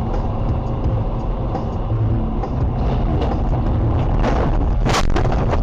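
Steady loud rumble of a car's tyres and engine on a wet motorway, heard from inside the car. Near the end come two sharp crash impacts, the second and louder about five seconds in, as cars collide just ahead.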